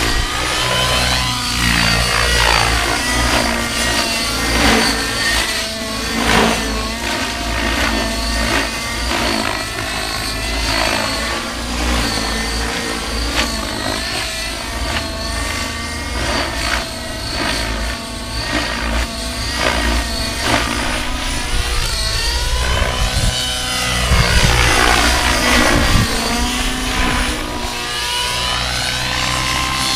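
Align T-Rex 700N radio-controlled helicopter flying 3D aerobatics: its nitro glow engine whines and its rotor blades swish, the pitch sliding up and down again and again as it manoeuvres and sweeps past.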